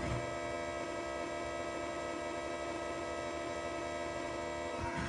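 Steady electronic drone from a Ciat-Lonbarde Fyrall synth patch run through a Phonogene: a held cluster of many unchanging tones at an even level.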